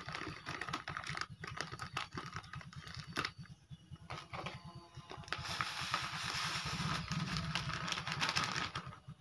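A plastic packet being handled with crinkles and clicks. From about five seconds in, granular Furadan pesticide is poured from the bag onto a heap of fertilizer granules, making a steady pouring hiss.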